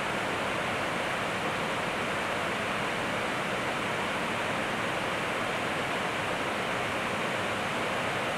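Steady rushing noise on the flight deck of an Airbus A321 in flight: the even hiss of air streaming past the cockpit together with the ventilation, unchanging throughout.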